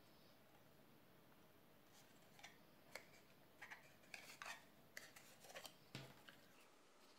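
Faint crackles and clicks of cardstock being creased and folded by hand into a small box, with a soft knock about six seconds in.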